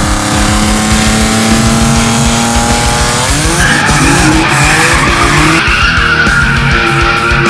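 Loud music with a fast, steady beat and held notes that slide in pitch about three seconds in.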